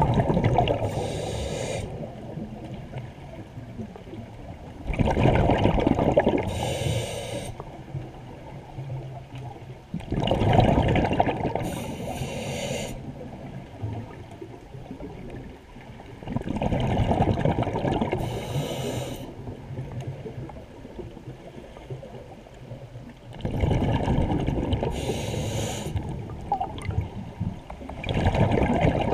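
A scuba diver breathing through a regulator underwater: a rushing, bubbling burst of exhaled air about every five to six seconds, six in all, each with a short hiss from the regulator.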